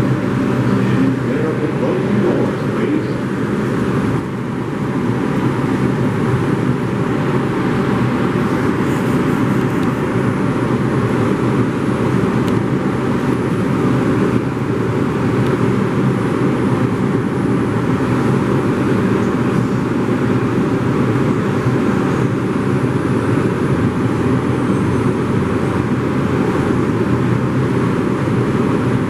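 New York City subway train in motion: a steady, unbroken running noise, with a brief dip about four seconds in.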